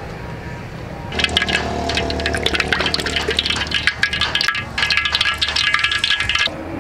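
Cooking oil pouring from a plastic bottle and splashing into a steel wok. It starts about a second in and stops abruptly near the end.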